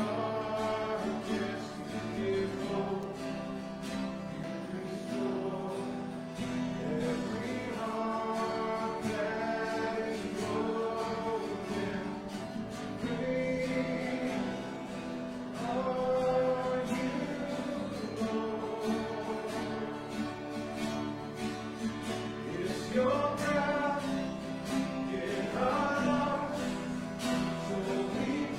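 A church congregation singing a worship song together, accompanied by guitar.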